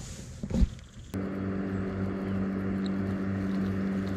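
A motor running steadily at one even pitch with a slight regular pulse, starting suddenly about a second in.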